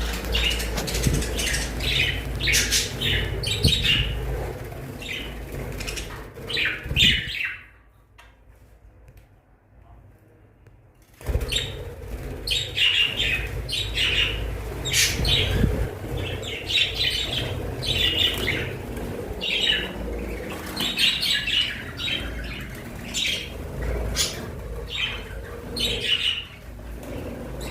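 A group of budgerigars chirping and warbling in rapid, overlapping calls, falling quiet for about three seconds partway through, then resuming.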